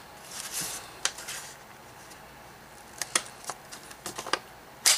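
Paper and cardstock rustling, then a scattered series of light clicks and taps from craft supplies being handled and set down on a table. The sharpest click comes near the end.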